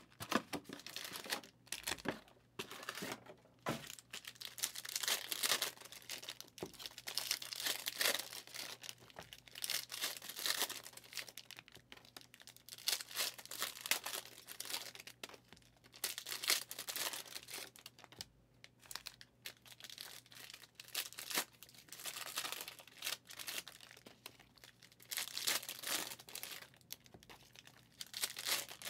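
Foil trading-card pack wrappers from Mosaic NFL hobby boxes being torn open and crinkled, one pack after another, in repeated bursts with short pauses between.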